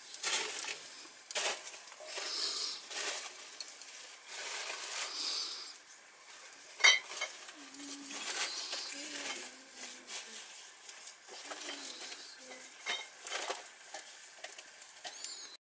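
A utensil stirring and scraping egg around a frying pan, with the food sizzling; the egg is sticking to the pan. A sharp metal clink about seven seconds in.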